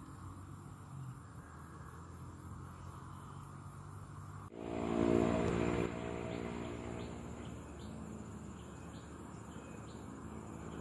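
Crickets chirring steadily in the background. About halfway through, the sound changes abruptly and a louder steady hum with several pitches comes in, then fades over a second or two. A few faint ticks follow.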